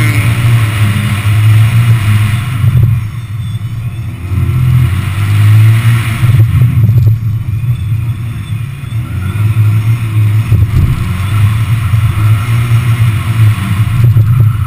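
Subaru Impreza GT's turbocharged flat-four engine pulling hard under acceleration, heard from inside the cabin. The engine note drops back briefly several times as the throttle comes off for the turns, then picks up again.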